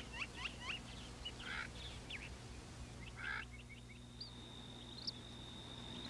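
Faint wild bird calls: a run of short, quick rising chirps, then from about halfway a thin, steady high tone with a few brief upturned notes.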